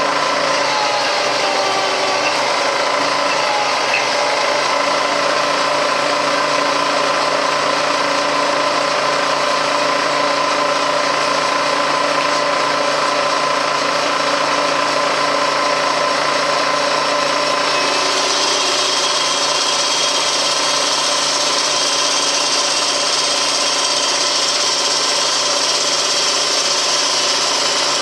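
Milling machine running steadily, its cutter machining aluminum: a continuous motor and spindle hum of several steady tones over a hiss of cutting noise. About two-thirds of the way through, the cutting noise turns brighter and hissier.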